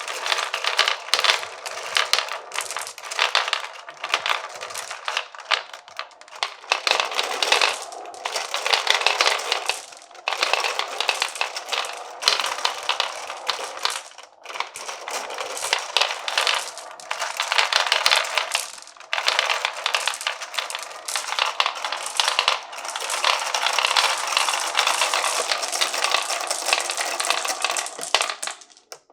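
Many glass marbles rolling and clattering down a wooden marble run, a dense stream of clicks and rattles that swells and eases in waves and dies away near the end.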